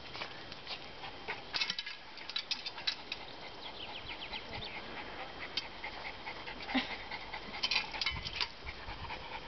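Yorkshire terrier panting, with clusters of quick light clicks and taps, twice.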